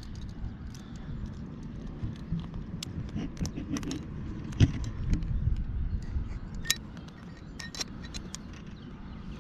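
Climbing hardware on a harness, carabiners and quickdraws, clinking and jangling as a climber moves up the rock. There are scattered sharp clicks, with two bright metallic clinks about two-thirds of the way through, over a steady low rumble.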